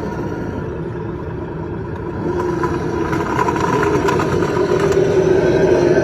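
Electric motor and gear drive of a CEN Racing Ford F-450 RC truck whining steadily, getting louder about two seconds in, with faint crackling in the middle.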